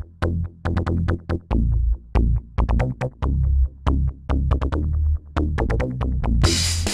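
Electronic music with a drum-machine beat: short, punchy bass-heavy hits in a stop-start rhythm, and the full, dense beat coming in near the end.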